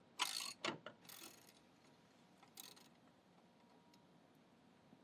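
Wrench working the 3/4-inch lock nut off a floor burnisher's caster wheel bolt: a few short bursts of metallic clicking in the first second and a half, and one more a little before the three-second mark.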